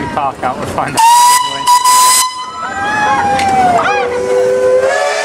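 Steam whistle on a miniature steam traction engine: a loud, high, steady blast about a second in that stops after a second or so, then lower whistle notes that slide down in pitch and hold near the end.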